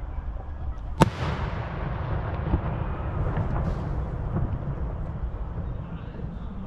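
Fireworks display: one loud shell burst about a second in, its boom dying away over the next seconds, followed by a few fainter pops over steady low background noise.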